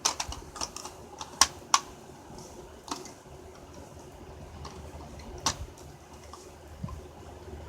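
Light plastic clicks and taps from smoke alarms being handled: several close together in the first two seconds, then a few single ones.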